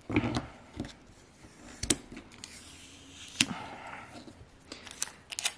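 Craft handling sounds: a plastic vinyl squeegee set down and transfer tape peeled off an acrylic keychain blank. Several sharp clicks and taps with a soft rustle between them, and a quick run of clicks near the end.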